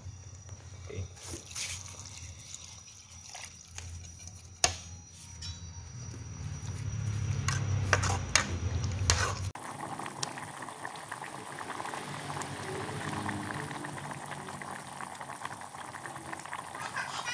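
A pot of bamboo-shoot and pork-bone soup heating on the burner, with scattered clicks and a sharp tick over a low hum in the first half. About nine seconds in, it changes abruptly to a steady rolling boil, bubbling hard.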